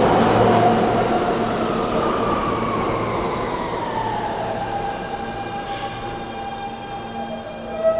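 R160 subway train pulling into a station and braking: wheels rumbling on the rails under a falling electric whine from the traction motors as it slows. The sound fades as the train nears a stop, with a short knock near the end.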